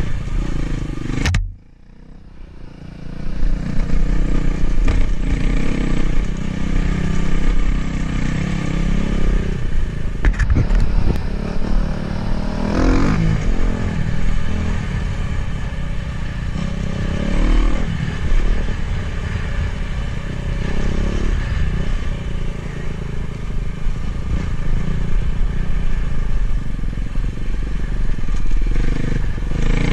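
Dirt bike engine running under way on a trail ride, its pitch rising and falling with the throttle. The sound drops out sharply about a second and a half in and comes back within about two seconds.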